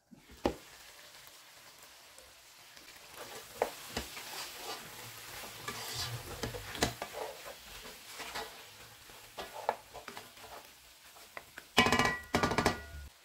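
Lamb trotters curry sizzling in a granite-coated frying pan while a wooden spatula stirs and scrapes through it, with a brief ringing clatter near the end.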